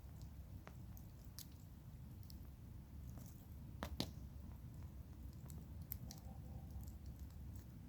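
Campfire wood crackling with scattered small pops, the sharpest a quick double pop about four seconds in and another near six seconds, over a faint low rumble.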